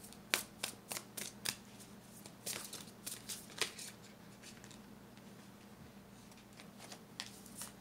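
Tarot cards being handled on a tabletop: a quick run of crisp card clicks and slaps in the first four seconds, then two more near the end.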